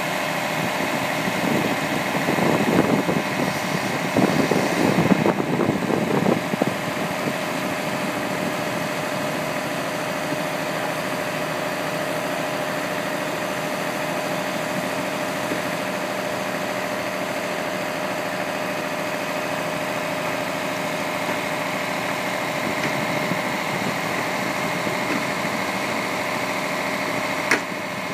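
Fire engine's motor running steadily at idle, a constant hum with a held whine over it, louder and rougher between about two and seven seconds in. A sharp click near the end.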